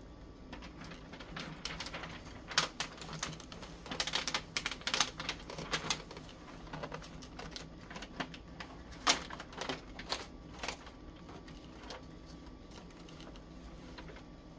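Corrugated cardboard box being handled: a run of irregular scrapes and clicks as its lid flap is folded and pressed into place, with one sharper knock about nine seconds in.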